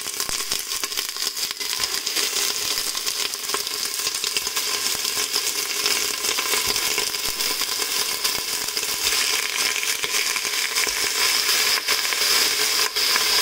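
Raw chicken pieces sizzling and crackling in hot cooking oil in a stainless steel pot as they are put in to brown. The sizzle grows a little louder as more pieces go in.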